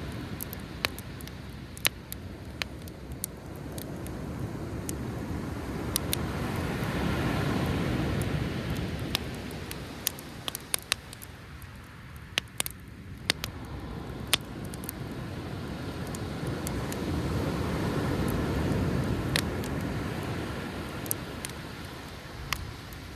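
Driftwood campfire crackling with scattered sharp pops, over the wash of sea waves that swell and fall back twice.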